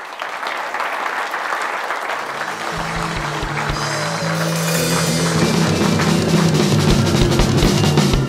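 Audience applauding. About three seconds in, music with a drum beat and bass comes in over the clapping and grows louder until it takes over.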